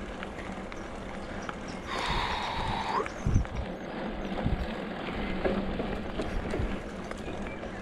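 Mountain bike rolling over a gravel forest track: tyres crunching and the bike rattling and knocking over bumps. A brief higher-pitched rasp about two seconds in, then the heaviest knock just before halfway.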